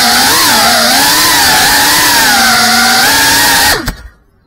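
FPV quadcopter's motors and propellers whining loudly, the pitch rising and falling with the throttle. The whine cuts off abruptly near the end as the drone touches down.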